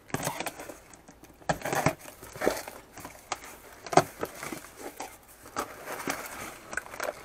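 Packaging rustling and crinkling, with irregular knocks, as a boxed bicycle engine is unpacked and lifted out.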